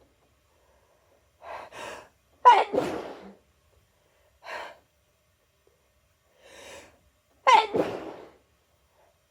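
A person sneezing twice, about five seconds apart. Each loud sneeze follows a couple of short, quieter gasping breaths in.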